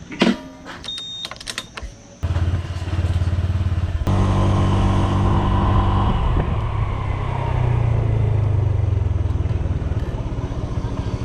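A few clicks and rattles, then a motor scooter's small engine starts about two seconds in and runs, getting louder about four seconds in as it rides away.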